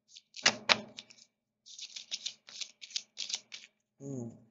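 A deck of tarot cards being shuffled: an irregular run of quick, crisp card clicks, with two louder snaps about half a second in. Near the end comes a short hum of voice, falling in pitch.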